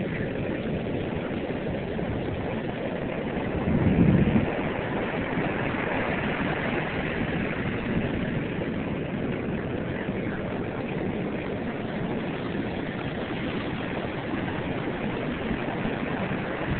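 Heavy surf breaking and washing up the sand in a steady rush, a hurricane swell stirred up in the normally calm Gulf of Mexico by a distant Hurricane Gustav. A louder, deeper surge comes about four seconds in.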